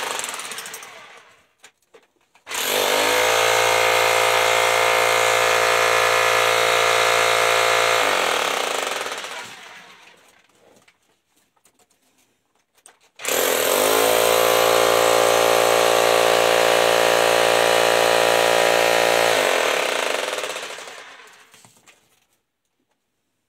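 Small handheld jackhammer breaking into rock in two bursts of about five and six seconds. Each burst starts abruptly with a steady mechanical running and winds down over a second or two when released, with a short gap between.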